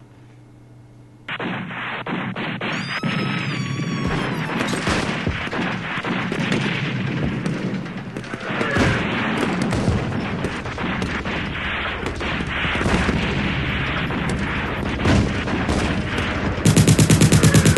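Battle sound effects: heavy, continuous rifle and machine-gun fire with booms, starting abruptly about a second in, with a falling whistle at about three seconds. Near the end a rapid, steady machine-gun burst takes over.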